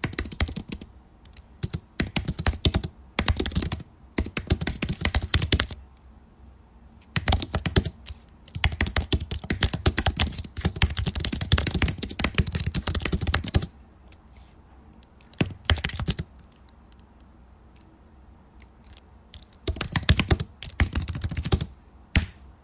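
Typing on a computer keyboard: bursts of fast key clicks, separated by pauses of one to three seconds.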